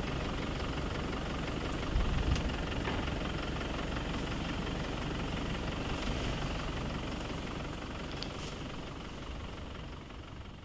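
A vehicle's engine idling steadily, with a couple of soft knocks about two seconds in; the sound fades out near the end.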